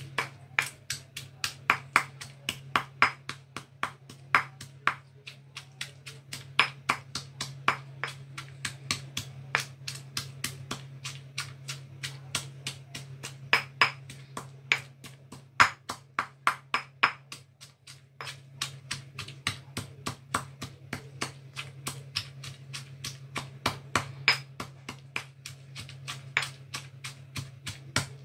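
Stone pestle pounding dried red chillies in a stone mortar: steady knocks, about two to three a second, over a steady low hum.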